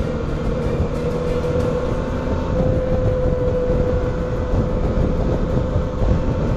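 Motorcycle cruising at motorway speed: wind rushing over the microphone and the engine running, with a steady droning tone.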